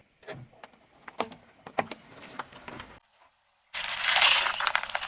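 Objects being crushed under a car tyre: a run of sharp cracks and crunches, then, after a short pause, a loud, dense crackling crunch lasting over a second.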